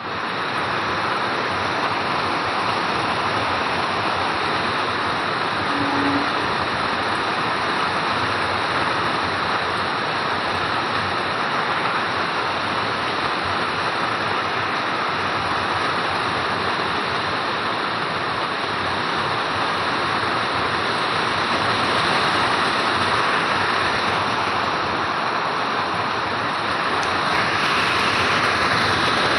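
Heavy rain falling in a steady, dense hiss that swells slightly louder late on.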